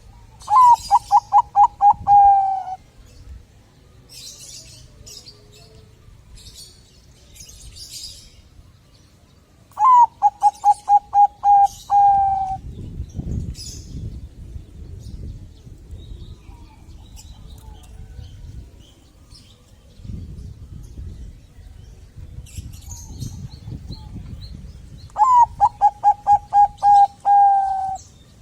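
Zebra dove (perkutut, Thai 'Bangkok' song line) singing three phrases, each a quick run of about eight cooing notes ending in a longer held note, roughly ten to fifteen seconds apart. Small birds chirp high and faint in between.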